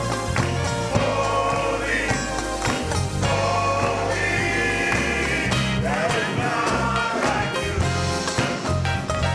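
Gospel music with singing over sustained bass notes.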